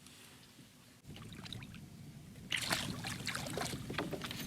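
Water lapping against a kayak hull. From about two and a half seconds in come irregular clicks and rustles of fishing gear being handled.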